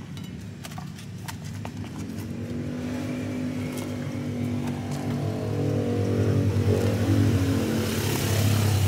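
A motor vehicle engine running on the road, steadily growing louder over several seconds as it approaches, with a rush of noise near the end as it passes close. A few light clicks of a spoon on a glass plate in the first couple of seconds.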